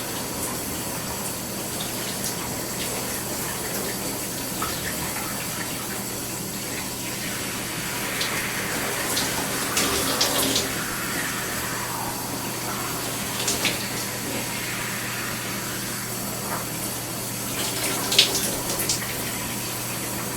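Shower running: a steady spray of water, with a low steady hum underneath and a few brief sharper clicks, around ten seconds in and again near the end.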